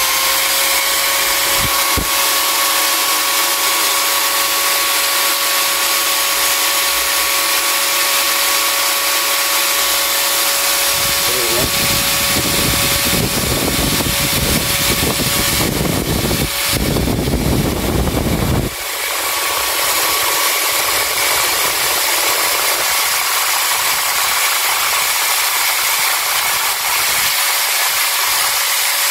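Pumpkin J-G9612 4-inch 650 W angle grinder running free with no disc fitted: a steady whine of motor and cooling fan at no-load speed. From about eleven to nineteen seconds in, a rough rustling rush joins it as a feather duster is held in the air blowing from the vents.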